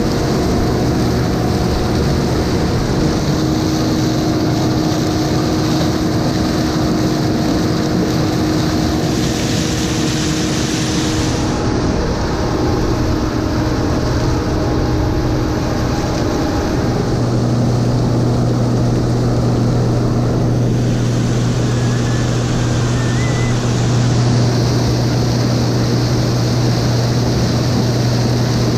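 Combine harvester running steadily while harvesting corn, a constant mechanical drone. About two-thirds of the way through, a low hum grows stronger and the pitch of the machine's tones shifts.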